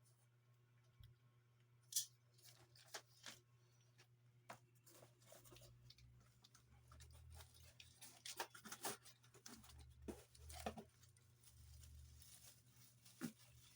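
Faint, scattered clicks, taps and rustles of packaging and plastic vacuum-cleaner parts being handled, with one sharper click about two seconds in and a busier run of taps in the second half, over a low steady hum.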